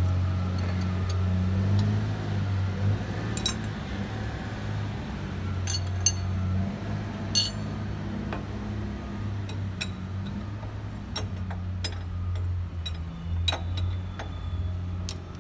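Metal clicks and clinks of hands and tools on hydraulic hose fittings as hoses are worked on an excavator's valve block. Sharp, scattered strokes over a steady low hum.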